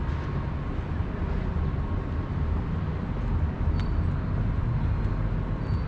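City street ambience: a steady low rumble of road traffic, with a faint short high chirp twice in the second half.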